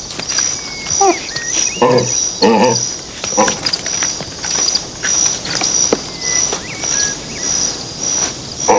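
Steady insect chirping, about two chirps a second, with a few short animal calls about one to three and a half seconds in.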